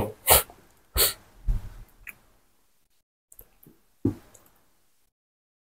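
A man's breaths and small mouth clicks between phrases, picked up close on a clip-on microphone: a handful of short, scattered sounds over about four seconds, then dead silence.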